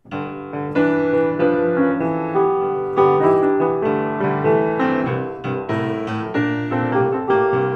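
Instrumental piano music: a melody of struck notes over chords.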